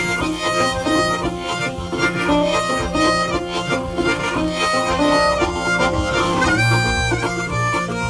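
Background music: an instrumental tune with a melody moving note by note over a steady accompaniment.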